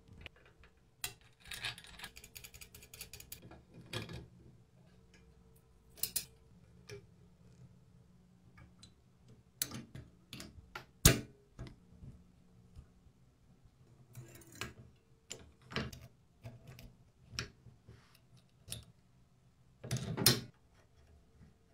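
Small metal parts and pliers clicking and tapping against a plastic tool body as a pin and spring are fitted by hand, with a sharp click about eleven seconds in and short scraping rattles near the start and near the end.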